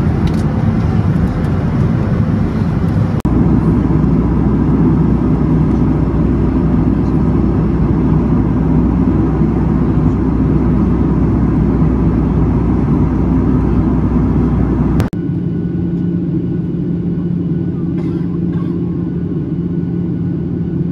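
Steady cabin noise of a Boeing 737-800 airliner in flight, a low rushing drone of airflow and engines heard from a window seat. The sound shifts abruptly twice, about three seconds in and about fifteen seconds in, and a steady low hum runs through the last part.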